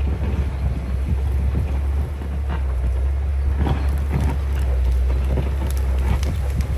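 Diesel engine of a John Deere 670GP motor grader running under load with a steady low drone, with scattered clicks and knocks over it, busiest from about the middle onward.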